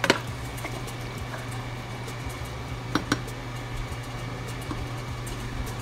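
Wooden spatula stirring chicken and water in a stainless steel pot, with a few sharp knocks against the pot: one just after the start and two close together about three seconds in. A steady low hum runs underneath.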